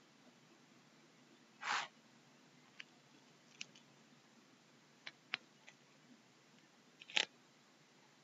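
Quiet room tone broken by two short sniffs, about two seconds in and near the end, with a few small sharp computer-mouse clicks between them.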